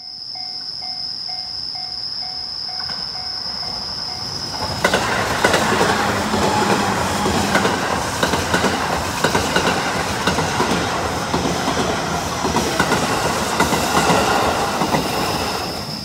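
A level-crossing warning bell rings in quick, evenly repeated dings over a steady high insect trill. About five seconds in, a Joban Line E531-series electric train passes close by, its wheels clattering rhythmically over the rail joints. It fades off near the end.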